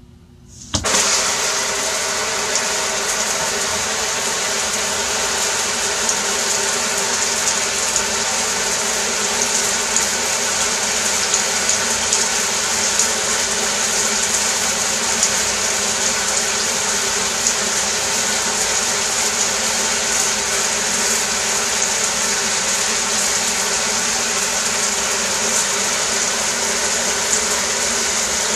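Shower spray running steadily, a dense hiss of water that comes on suddenly a little under a second in.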